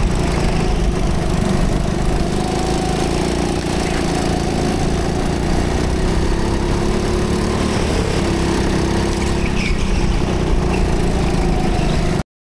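Rental go-kart engine running under throttle, heard from the driver's seat, its pitch rising and falling a little through the corners. The sound cuts off abruptly near the end.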